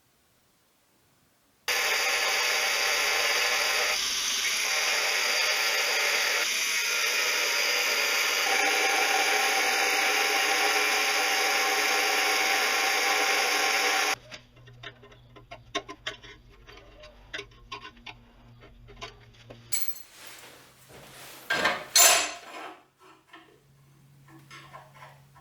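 9-inch (230 mm) angle grinder running steadily in its stand for about twelve seconds, starting and stopping abruptly. After it stops there are scattered clicks and metal clanks over a low hum, with one loud knock near the end.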